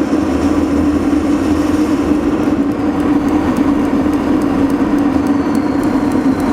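Propane forced-air heater running, its fan and burner flame making a loud, steady noise with a strong low hum. Faint, rapid clicking from the piezo igniter comes in a couple of seconds in.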